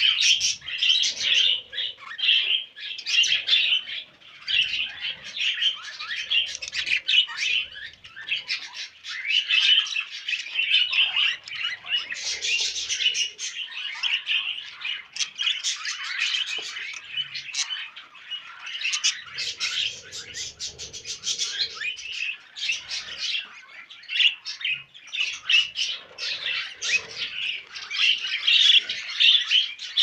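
Male budgerigars warbling and chattering nonstop: fast, rambling twitters, chirps and squawks. This is budgie courtship warbling while one bird mounts the other.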